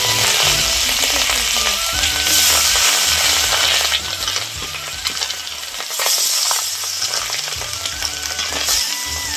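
Pieces of rohu fish sizzling as they fry in hot oil in an iron kadai, the sizzle swelling about two seconds in and again about six seconds in as more pieces are slid into the oil.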